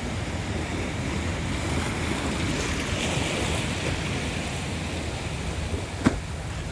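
Sea waves washing steadily, swelling about halfway through, with low wind rumble on the microphone. A single sharp click comes about six seconds in.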